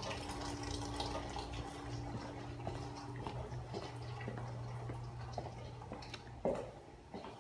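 Water trickling and dripping in a swimming pool over a steady low hum, with scattered small ticks and one short knock about six and a half seconds in.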